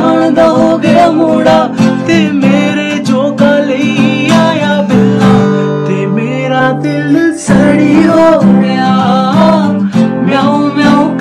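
Men singing a Dogri folk song to a strummed acoustic guitar, with a brief break in the singing about seven seconds in.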